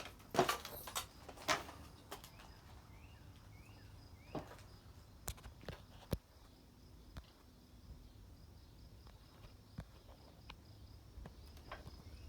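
Footsteps outdoors, a few knocks early and then scattered clicks and snaps, with three short rising bird chirps about three seconds in and a faint high insect chirring throughout.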